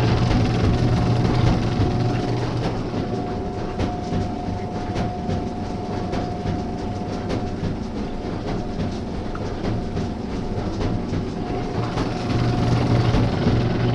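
Consul Super Jato 5 kg washing machine running: a steady motor hum with a thin whine above it and irregular clicking and clattering.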